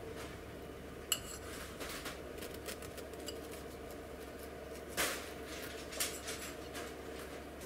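Kitchen knife cutting through a baked chocolate cake and knocking against the plate beneath it, with a sharp clink about a second in and louder knocks about five and six seconds in.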